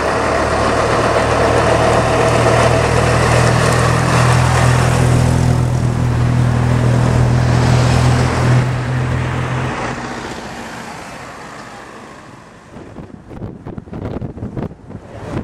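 Vintage open-top double-decker bus engine running steadily as the bus passes and pulls away, fading into the distance. Wind buffets the microphone near the end.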